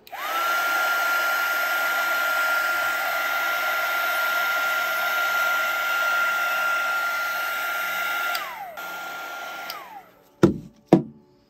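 Wagner HT400 heat gun blowing over freshly poured epoxy to pop the bubbles, a steady fan rush with a whine that spins up as it is switched on. About eight seconds in it winds down, runs on more quietly for a moment, then winds down again. Two sharp knocks follow near the end.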